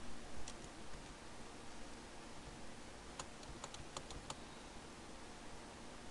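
Computer keyboard keys being pressed while editing code: a couple of isolated clicks near the start, then a quick run of about six keystrokes a little past the middle, over a faint steady hiss.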